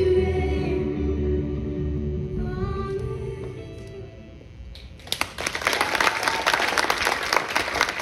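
A worship song with sustained singing fades out over the first four seconds. About five seconds in, applause breaks out and continues, many hands clapping.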